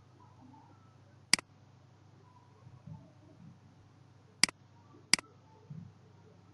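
Computer mouse button clicking three times: one click, then about three seconds later two more clicks less than a second apart. A faint steady low hum runs underneath.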